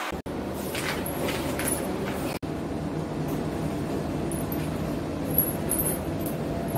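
Steady mechanical hum and rumble of a running window air conditioner, with a few faint knocks of things being handled. It cuts out for an instant twice, about a quarter second in and again near two and a half seconds.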